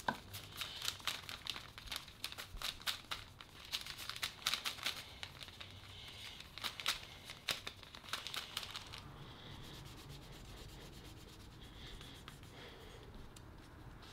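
Hand rubbing on wood: a quick run of short scratchy strokes for about nine seconds, then softer, smoother rubbing.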